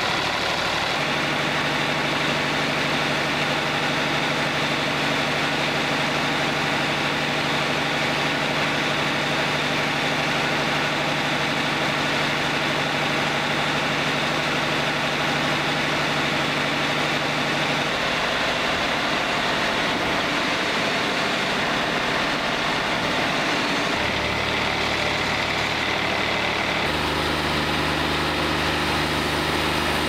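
Wood-Mizer LT40 Wide portable bandsaw mill running steadily, engine and band blade going. Its hum changes pitch a few times in the second half.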